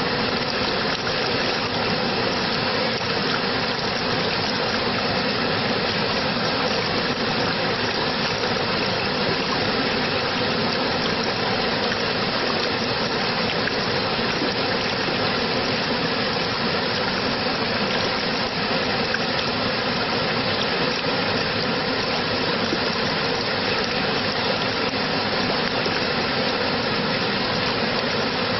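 Steady rush of flowing water, an even, unchanging noise.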